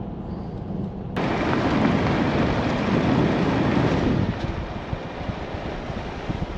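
Car driving on a dirt road: a low steady rumble, then about a second in a sudden loud rush of wind buffeting and tyre noise, as heard past an open side window. The rush eases a little after about four seconds.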